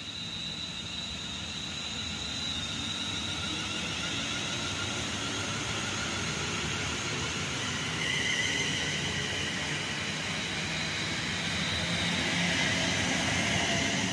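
Class 350 Desiro electric multiple unit running past along the platform: wheel-on-rail noise with a steady high whine from the traction equipment, growing a little louder about eight seconds in and again near the end.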